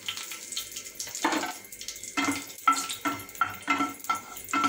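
Cinnamon stick and bay leaf sizzling as they go into hot oil in a ceramic-coated frying pan. About two seconds in, a spatula starts stirring them, scraping and tapping against the pan in quick strokes, about four a second.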